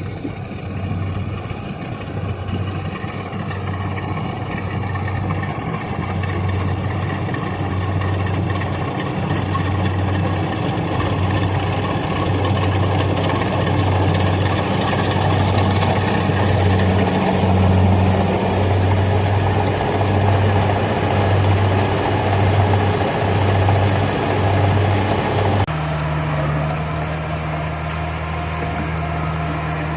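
Rice combine harvester's engine running steadily, with a low throb pulsing about once a second. Near the end the sound changes abruptly to a steadier low hum.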